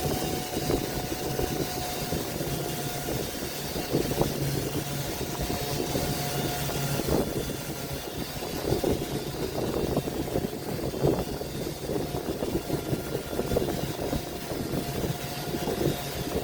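Electric woodworking power tool running steadily, its motor hum mixed with an uneven, scratchy noise from the tool working the wood.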